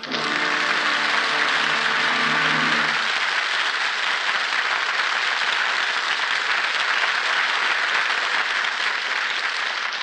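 Studio audience applauding, with the last sustained notes of the orchestral music underneath for about the first three seconds.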